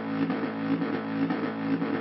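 Hand-made Arduino drone synthesizer holding a steady low drone of several stacked tones under a grainy, crackling noise texture, its loudness swelling and easing about twice a second.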